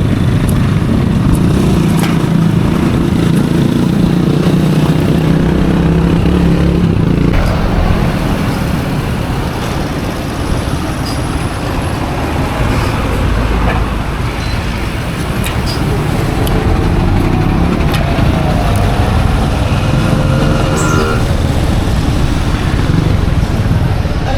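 Road traffic and vehicle noise with wind buffeting the microphone: a loud, steady rumble.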